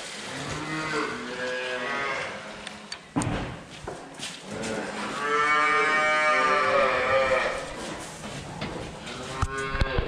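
Holstein calves mooing: a short call about a second in, a long, loud call from about five to seven and a half seconds in, and another near the end. A single knock sounds about three seconds in.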